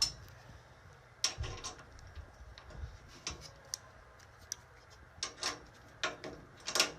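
Small hand ratchet tool clicking and tapping at uneven intervals as small screws are driven into a steel box spring frame.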